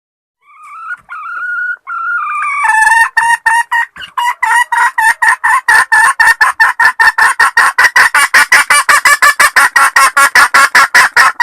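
Junglefowl hen's mating call: a few drawn-out notes, then a fast, even run of short clucking notes, about five a second, growing louder.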